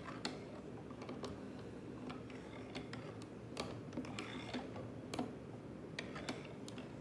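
Irregular light clicks and taps, about a dozen, from the home-built joystick's mechanism being moved around, over a faint steady electrical hum.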